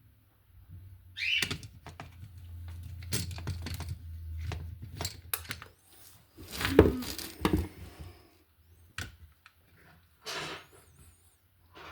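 Irregular clicks, knocks and rustles of hands handling a wall outlet and its wires, loudest a little past the middle.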